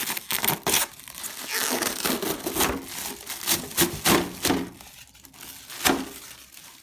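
Packaging being crinkled and torn off as the RC truck is unwrapped: a run of irregular crackles, rips and rustles that thin out after about five seconds.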